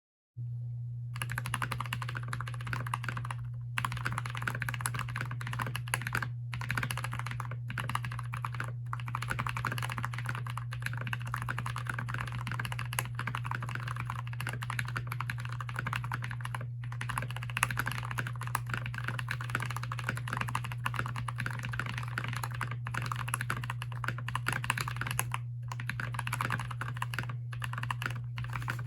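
Fast typing on a Keychron K6 mechanical keyboard fitted with Holy Panda v1 tactile switches lubed with 205g0: a dense, continuous run of key clacks with a few short pauses. A steady low hum runs underneath.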